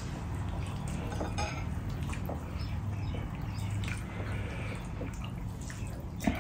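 Fingers mixing rice with dal on a steel plate: soft wet squishing and dripping, with a few small clicks of fingers and ladle against the dishes, the sharpest near the end. A steady low hum runs underneath.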